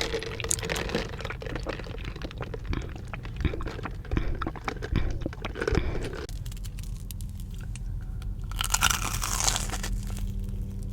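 Close-miked crunchy eating: a person biting into and chewing a fried Korean cheese dog, the crisp coating crackling. The crunches come thick for about six seconds, then thin out.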